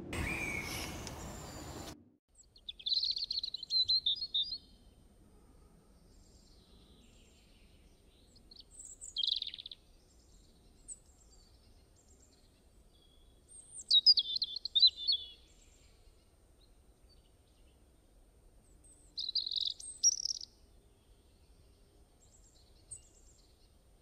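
Songbirds singing in four short bursts of high chirping, several seconds apart, with quiet between. At the start a rushing noise runs for about two seconds and cuts off suddenly.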